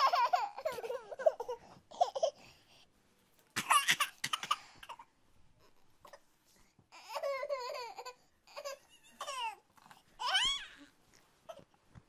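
A toddler babbling and laughing in several short, high-pitched bursts with quiet gaps between them.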